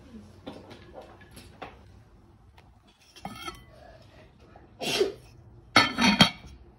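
A slow cooker's glass lid with a metal rim being lifted off the ceramic crock and set back down, clinking and clattering on the rim. The loudest knocks come near the end, as the lid is put back in place.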